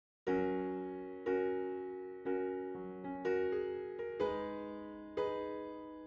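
Background music: electric piano chords struck about once a second, each ringing and fading before the next.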